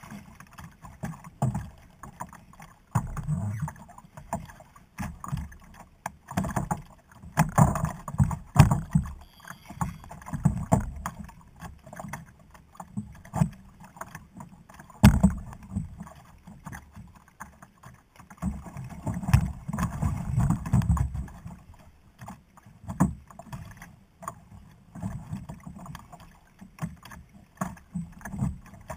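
Choppy sea water slapping and sloshing against the hull of a plastic sit-on-top fishing kayak, in uneven surges, with a sharp knock about halfway through.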